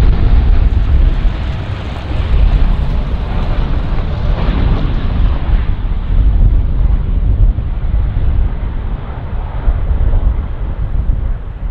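Jet airliner engines at takeoff power: a loud, steady, deep rumble with a hiss above it. The hiss thins out after about halfway through while the rumble carries on.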